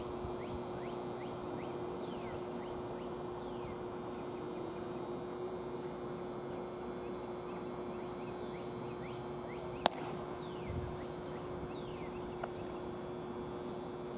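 Outdoor ballfield ambience: a steady low hum under a noisy background, with birds chirping in short falling notes throughout. A single sharp knock sounds about ten seconds in, with a fainter one a couple of seconds later.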